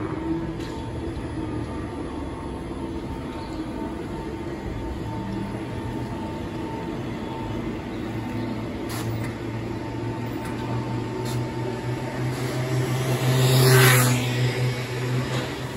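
Electric trolleybus pulling away, its traction drive giving a steady whine over a low hum. Near the end a louder rushing sound swells up and fades.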